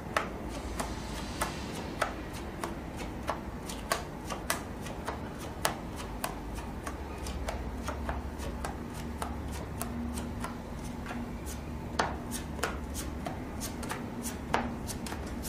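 Playing cards being dealt and turned over onto a felt poker table: irregular light snaps and taps, one to three a second, over a steady low hum.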